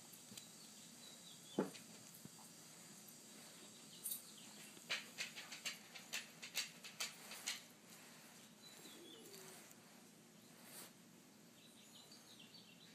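Quiet room with a sharp click about a second and a half in, then a quick run of about ten light clicks over two and a half seconds, with a few faint high chirps.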